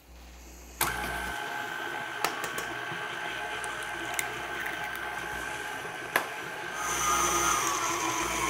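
KitchenAid stand mixer running, its motor whining steadily as the flat beater works an egg into hot choux paste. It starts about a second in, with a light tick about every two seconds, and gets louder near the end.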